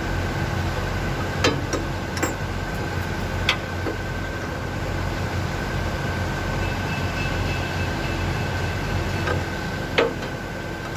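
A few sharp metallic clinks of hand tools on the engine. Under them runs a steady machinery hum with a constant high whine.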